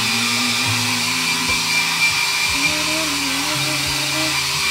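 Hand-held hair dryer running steadily, blowing hot air onto vinyl wrap film to soften it.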